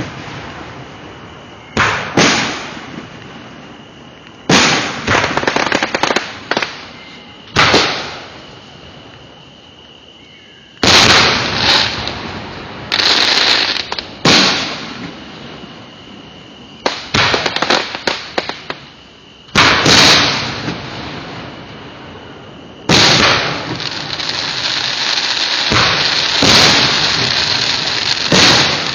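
Aerial fireworks shells bursting with sharp bangs every two to four seconds, many followed by a shower of crackling. In the last several seconds the bursts and crackle run together into a dense, continuous barrage.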